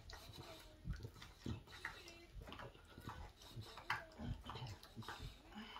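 English bulldog chewing on a bone: irregular gnawing clicks and crunches of its teeth on the bone.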